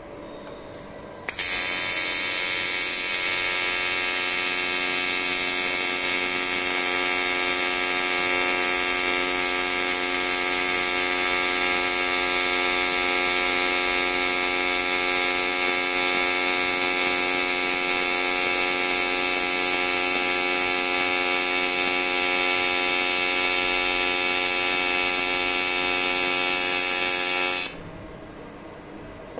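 AC TIG welding arc on aluminium: a loud, steady electrical buzz with a high hiss that starts abruptly about a second in and cuts off near the end as the arc is broken.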